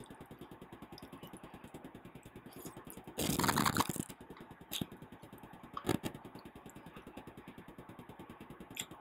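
Eating sounds: a utensil scraping a food container for under a second about three seconds in, then a few light clicks, over a steady, fast-pulsing background hum.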